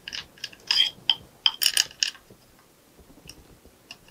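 Light metallic clicks and clinks from a hand tool turning the pistol grip screw into a rifle's lower receiver. The clicks come quickly and irregularly for about two seconds, then thin out to a few faint ticks.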